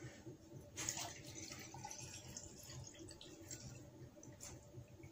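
Water poured from a copper bottle into a drinking glass, a faint trickle, with a light knock about a second in.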